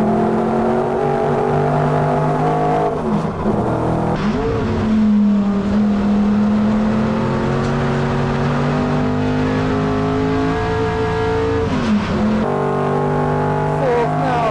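1981 Rover SD1 Group 2 touring car's 3.5-litre V8 racing engine pulling hard at full throttle, its note climbing steadily in pitch. The note dips and climbs again at gear changes, about three to five seconds in and again near twelve seconds.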